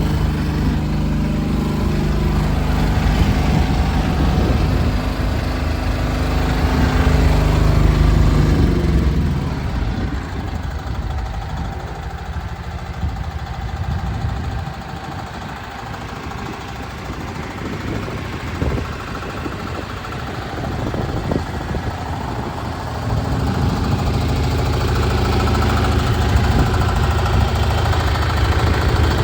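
Diesel engine of a one-tonne mini excavator running just after start-up, a steady low-pitched run. About ten seconds in it drops in level for roughly a dozen seconds, with a few sharp knocks, then comes back up to full strength.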